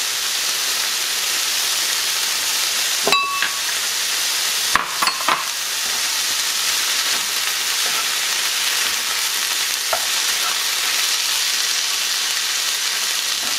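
Shredded chicken, diced tomato and Anaheim pepper sizzling steadily in a hot cast iron skillet, with a short ringing clink about three seconds in and a few quick knocks around five seconds. A wooden spoon stirs the mixture near the end.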